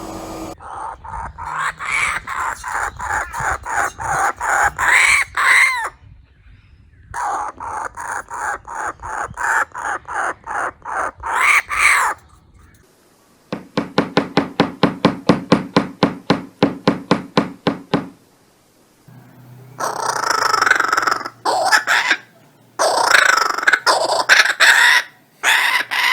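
Laughing kookaburra calling: several runs of rapid repeated notes that build in loudness, with harsher cackling bursts near the end.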